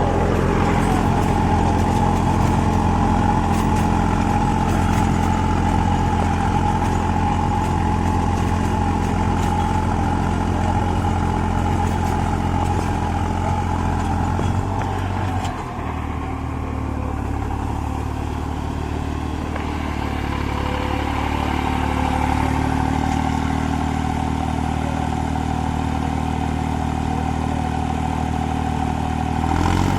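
New Holland 5620 tractor's diesel engine working steadily under load at about 1800 rpm, driving a super seeder through harvested paddy stubble. About halfway through, the engine note drops lower and then settles.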